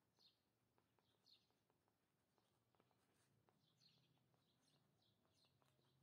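Near silence, with faint, repeated bird chirps in the background and a few faint ticks.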